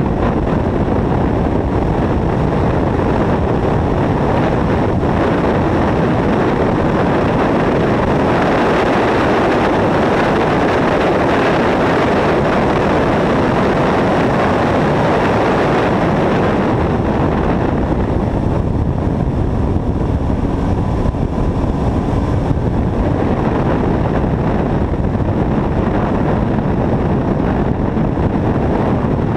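Heavy wind rush buffeting the microphone of a camera mounted outside on a car's nose at track speed, mixed with the car's running noise; steady throughout and fullest in the middle stretch.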